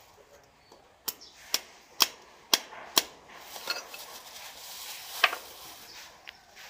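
Sharp metal-on-metal taps from a hand tool striking a small drum-brake part: five quick strikes about two a second, then a softer one and a last loud one a couple of seconds later.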